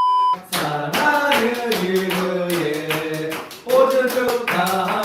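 A brief electronic beep at the start, then voices singing a tune in held, stepping notes over a run of hand claps or taps.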